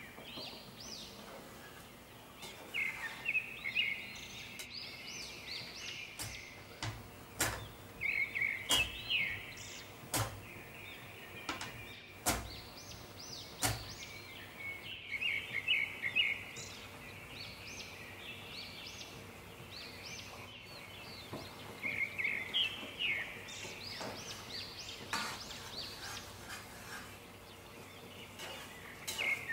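Birds chirping in repeated bouts of quick high notes, with a few sharp clicks or knocks between them.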